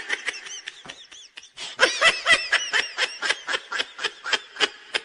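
Laughter: a rapid run of short 'ha-ha' bursts, about four a second, picking up after a quieter first second and a half.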